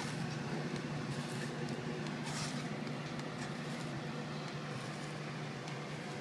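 Steady low machine hum in the room, with a few faint soft rustles of a hand handling the spiralized zucchini strands on the plate.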